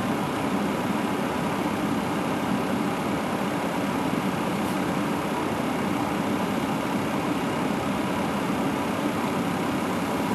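Steady hum and hiss inside a Boeing 757 flight deck on the ground, with the APU still running at full speed through its cooldown after being switched off.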